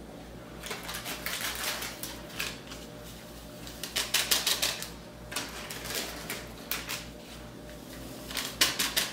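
Small foil-plastic sachet of powdered peach drink mix crinkling as it is shaken and tapped to pour the powder into a bowl, in several short bursts.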